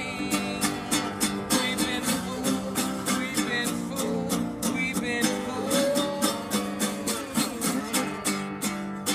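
Acoustic guitar strummed in a steady rhythm, about four strums a second.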